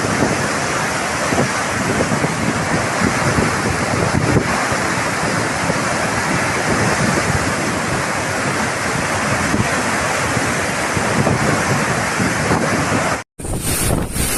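Cyclone storm noise: a steady, loud rush of wind and water, with wind buffeting the microphone. About 13 seconds in the sound cuts out for an instant and a different gusty storm recording follows.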